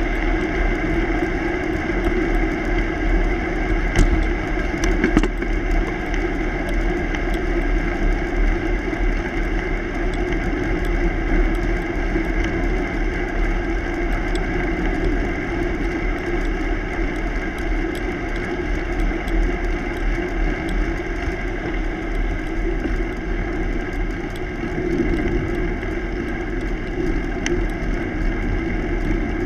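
Steady wind rumble and tyre-on-pavement noise picked up by a camera mounted on a moving bicycle, with a couple of light clicks about four and five seconds in.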